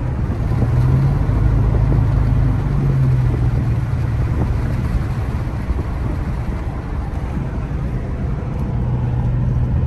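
Car interior road noise while driving: a steady low engine drone with tyre and wind noise.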